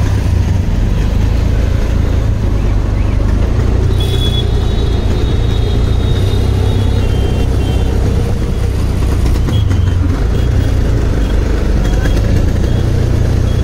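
Steady low rumble of an auto-rickshaw's engine and road noise from inside the moving rickshaw in city traffic, with a faint high tone from the traffic a few seconds in.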